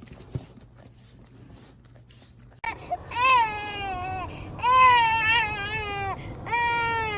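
A dog howling in three long, drawn-out cries, each starting high and sliding down in pitch, after a couple of seconds of quiet with a few faint clicks. The last cry is cut off suddenly.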